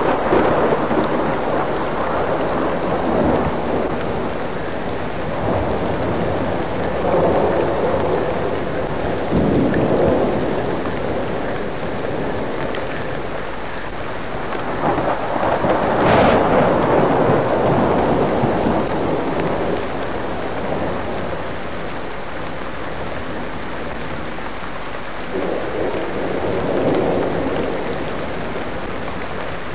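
Rain falling steadily during a thunderstorm, with rolls of thunder swelling and fading several times; the strongest comes about halfway through.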